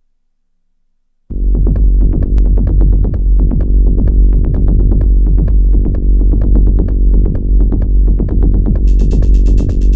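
Improvised techno from hardware synthesizers and a drum machine, starting suddenly about a second in. A deep steady bass drone carries a fast sequenced pattern of short notes over it, and a high ticking hi-hat-like layer comes in near the end.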